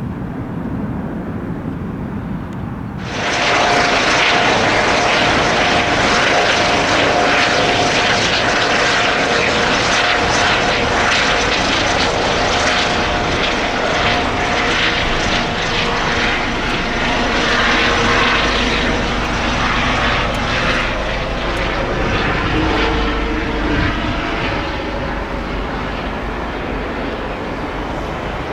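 Jet airliner engines running loud: a broad rush of jet noise with a steady whine on top. It jumps up suddenly about three seconds in and eases off a little near the end.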